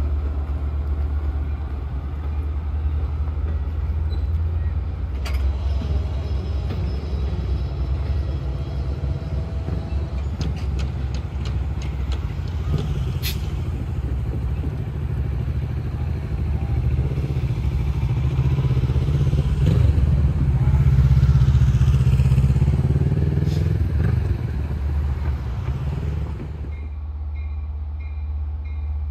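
Long Island Rail Road diesel-hauled bilevel train pulling away: a steady heavy diesel rumble with the sound of wheels on rails and a few sharp clicks. It grows louder for a few seconds about two-thirds of the way through, then drops off suddenly near the end.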